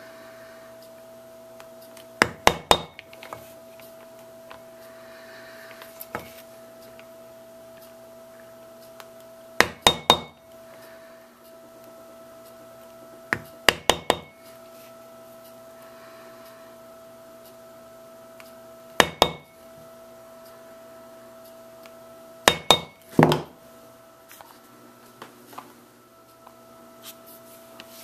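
Mallet striking a basket-weave stamp into vegetable-tanned leather on a metal plate: about five quick groups of two or three sharp taps, several seconds apart, each tap with a brief metallic ring. A steady low hum runs underneath.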